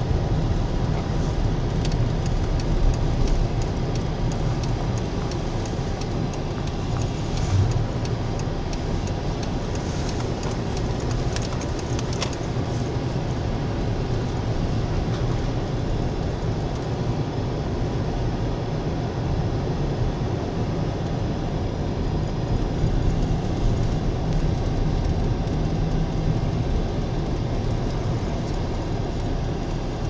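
A vehicle driving on snow-packed road, heard from inside the cabin: a steady low rumble of engine and tyres, with a few faint clicks and rattles in the first dozen seconds.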